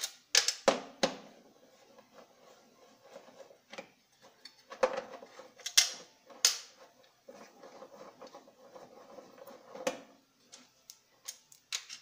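Metal clicks and clinks of an L-shaped wrench and loose bolts on a washing machine's steel mechanism plate as the bolts are unscrewed and lifted out. The clicks are irregular and scattered, louder ones come about a second in, around the middle and near ten seconds, and a quick run of them comes near the end, with quieter handling rattles between.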